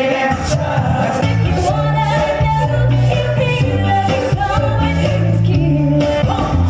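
A Motown song performed live in a stage show: singing over a repeating bass line and a steady beat.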